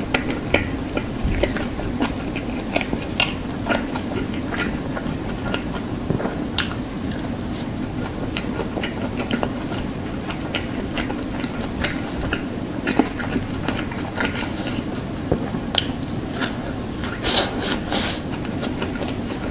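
Close-miked chewing of a burger: steady wet chewing with many small mouth clicks and smacks scattered throughout.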